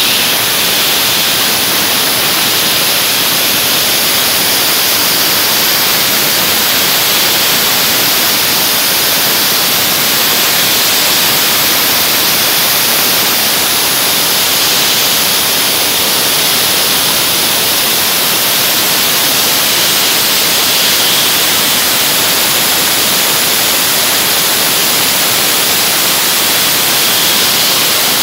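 Dry-ice blasting gun running steadily, a loud, continuous high hiss of compressed air driving dry-ice pellets at the machine.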